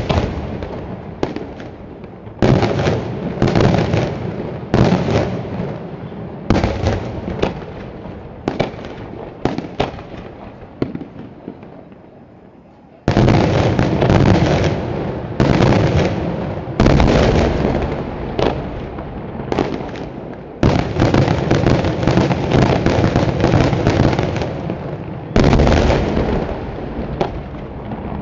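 Daytime fireworks going off in rapid volleys of loud bangs and crackling reports. The volleys thin out and fade for a few seconds, then a sudden heavy burst about halfway through starts another dense run of bangs.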